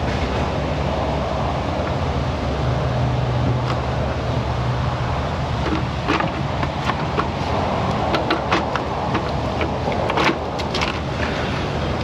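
Steady low hum of shop background noise, with scattered light clicks and taps of tools and parts being handled during valve cover removal, most of them in the second half.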